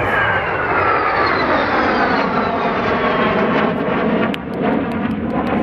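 Jet engine roar from a JAS 39 Gripen and a Saab 32 Lansen flying past together in formation, a Volvo RM12 turbofan and an RM6 turbojet. A whine in the roar falls steadily in pitch as they pass.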